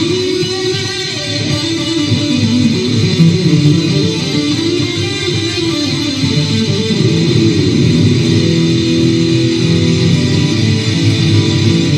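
Loud electric guitar music playing continuously.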